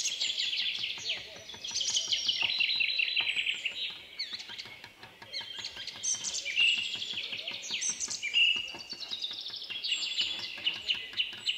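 Rapid, steady hammer taps on an engraving chisel cutting a copper plate, each tap setting the thin metal ringing with a bright, chirp-like tone.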